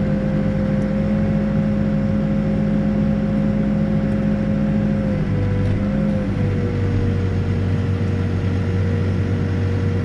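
Backhoe's diesel engine running steadily, heard from inside the cab, with a steady whine over the engine hum. A little after halfway the pitch drops slightly and the hum settles lower.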